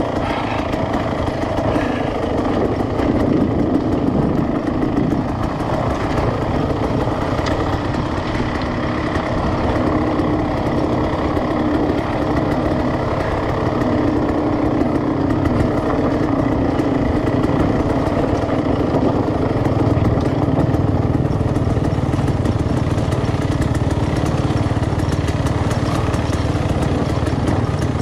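Dirt bike engine running steadily at low revs as the bike crawls over rocky ground.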